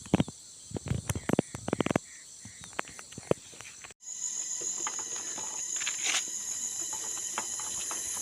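Steady high-pitched chorus of insects in the surrounding vegetation. A run of sharp clicks, like footsteps, comes in the first two seconds. About four seconds in, the sound breaks off for an instant, and the insect chorus then returns louder.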